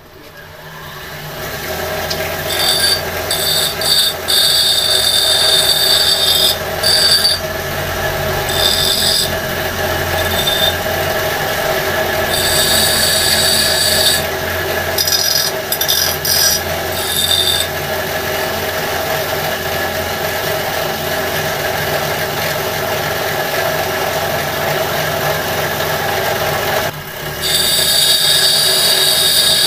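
Home-made bench grinder driven by a washing-machine motor spins up in the first couple of seconds, then runs with a steady hum. A steel chisel is pressed against the spinning grinding wheel in repeated passes, each giving a harsh, high grinding sound, with a longer break in the grinding before a last pass near the end.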